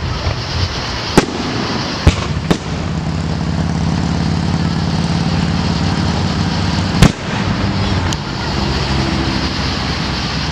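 Aerial fireworks shells bursting: five sharp bangs, the loudest about seven seconds in, over a steady low hum.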